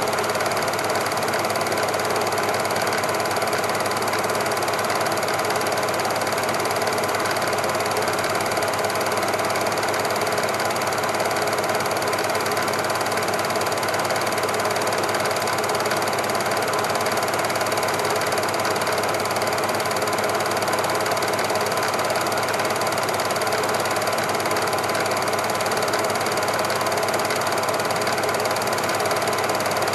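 Super 8 cine projector running, its film-advance mechanism making a steady rapid clatter that does not change as the picture changes.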